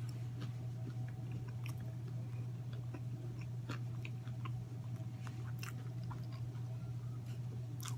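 Close-up chewing and mouth sounds of a person eating, with scattered small wet clicks and smacks, over a steady low hum.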